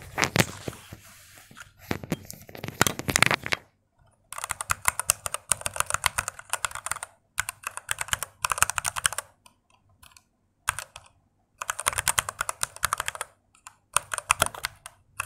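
Keys typed rapidly on a Redragon K662 wireless mechanical keyboard with linear red switches, in runs of a second or two with short pauses between. A deep sound, with no clicky switch noise.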